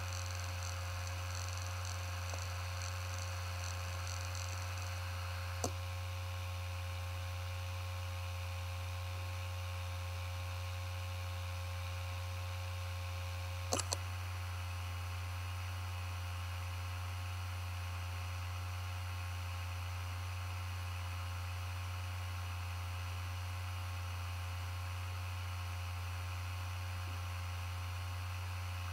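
Western Digital Scorpio Blue WD1600BEVS 5400 rpm laptop hard drive spinning with a steady low hum. There is a single click about six seconds in and a short double click about halfway through.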